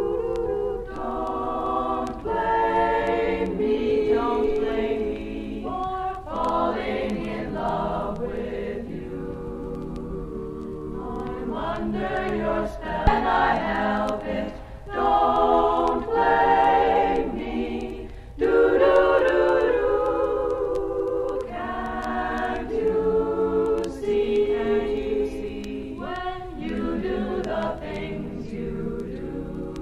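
A women's a cappella group singing close harmony in sustained chords that shift every second or two, from a 1961 vinyl LP recording.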